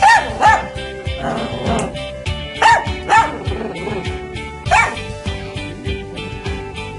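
A dog barking in short separate barks, about five in all, in pairs near the start and a few seconds in, then once more past the middle, over background music.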